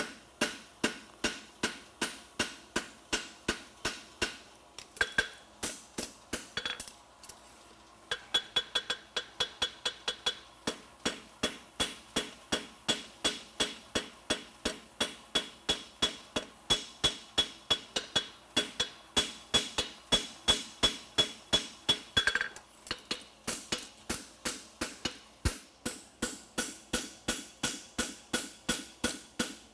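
A farrier's hammer striking a steel horseshoe on an anvil in a steady rhythm, about three blows a second, as he forges and flattens the edge of a French hind shoe. There is a short pause about seven seconds in, and through the middle the anvil rings with each blow.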